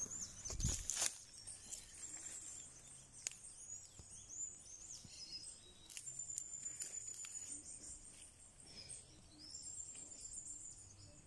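Faint high chirps of birds and insects: many short rising and falling calls, with a steadier high note about six seconds in. A brief thump about a second in.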